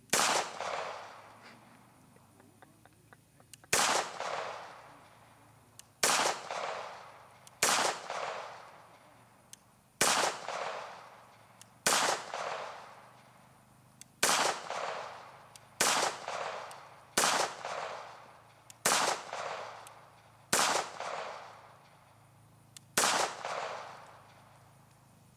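CZ82 pistol firing 9×18mm Makarov in slow aimed fire: twelve single shots about one and a half to four seconds apart. Each shot is followed by a fading echo.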